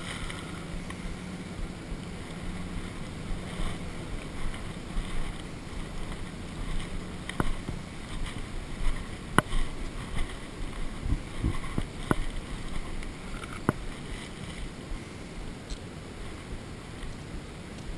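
Steady low rumble with four sharp clicks spread through the middle.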